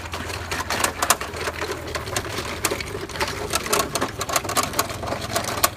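Homemade bulldozer running: a steady low hum under irregular mechanical clicking and clattering.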